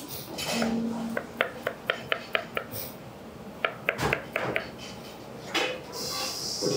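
Chef's knife slicing dragon fruit on a plastic cutting board: runs of quick taps of the blade on the board, about five a second, with a heavier knock in the middle. A steady high hiss starts suddenly near the end.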